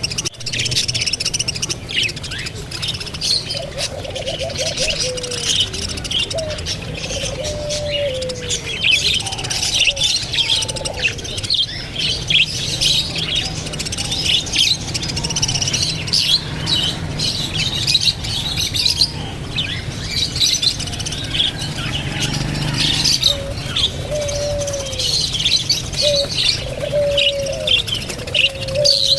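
Many birds chirping and twittering densely, with short falling calls lower in pitch in two clusters, a few seconds in and near the end, over a steady low hum.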